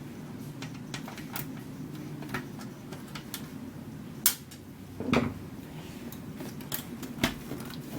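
Scattered small clicks and taps from handling screws and parts while a stereo receiver is being taken apart, with a few sharper knocks in the second half.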